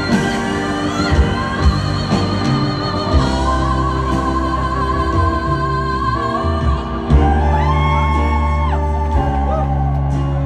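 Live band music with two female vocalists singing long, wavering held notes together over the band, heard through the arena's echo.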